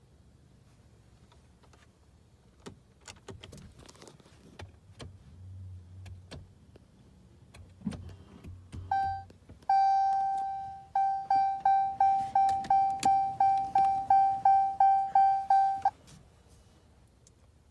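Dodge Challenger's dashboard warning chime: one short chime, then a longer one that fades, then a rapid run of chimes about three a second for some five seconds, stopping suddenly. Before it come faint clicks and a brief low hum, and the engine does not crank or start.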